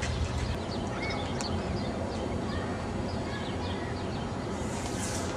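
Outdoor background noise with scattered short, high chirps of small birds. A low rumble drops away about half a second in.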